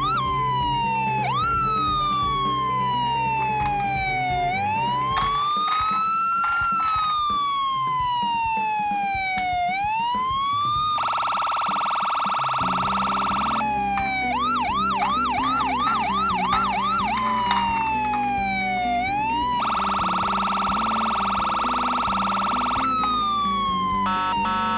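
Electronic siren of a toy ambulance miniature car, switching between a long slow rising and falling wail, a fast yelp and a steady buzzing horn tone. The buzzing tone comes twice, about eleven and twenty seconds in, and a choppy pulsing tone comes near the end.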